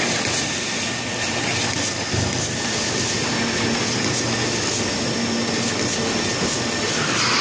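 Steady machine noise of a running weigh-price labeling line for cheese packs, its conveyor belts moving the packages, with a dull thump about two seconds in.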